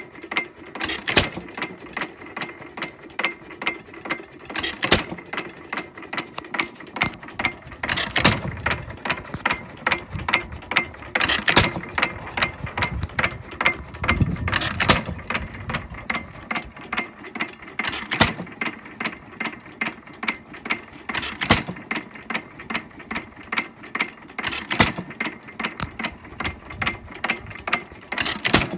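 Bamford 4 hp single-cylinder hit-and-miss petrol engine running unloaded under its governor. It fires with a loud knock about every three seconds, sometimes twice in a row, and its valve gear and governor latch click rapidly in between as it coasts on its flywheels.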